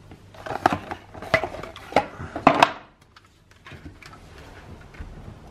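A toy Ferrari model car being pulled out of its cardboard box: a run of sharp clicks, knocks and scrapes of the car and packaging for the first two and a half seconds or so, then only light handling ticks.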